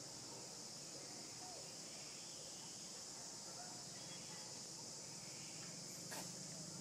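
Faint, steady high-pitched drone of insects, with a single sharp click near the end.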